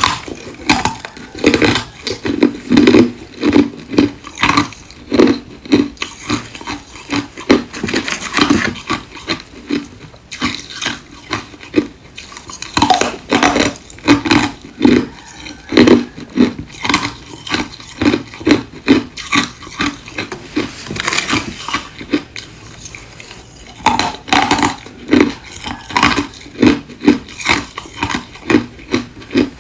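Ice being chewed close to the microphone: a quick run of sharp, crunchy bites and cracks, easing off twice for a second or two between mouthfuls.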